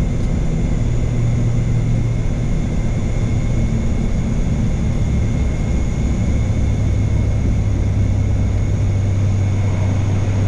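Cockpit noise of a twin-turboprop ATR airliner climbing after takeoff: a loud, steady drone of the propellers and engines. The low tone settles slightly lower and steadier about six seconds in.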